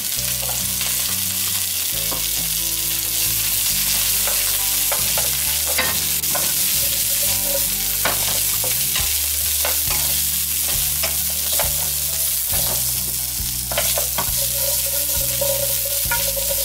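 Asparagus spears sizzling steadily in hot oil with minced garlic in a nonstick wok, being stir-fried with a wooden spatula that scrapes and taps against the pan in many short clicks.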